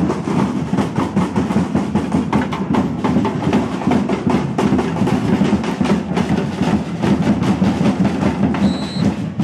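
Carnival street percussion band drumming a fast, dense, driving rhythm.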